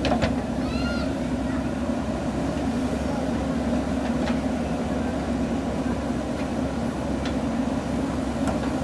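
Diesel engine of a JCB 3DX backhoe loader running steadily at working revs, with a few short sharp clanks.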